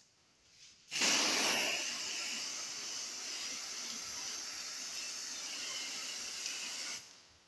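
Aerosol spray-paint can hissing in one long spray of about six seconds as it paints a plastic BMX wheel. It starts about a second in, loudest at first, then steady, and stops shortly before the end.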